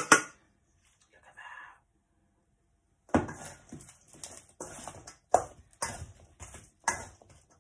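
Metal spoon scraping and clinking against a stainless steel mixing bowl as shrimp are stirred through a marinade. The strokes are sharp and come about two a second, starting about three seconds in after a brief clatter and a quiet gap.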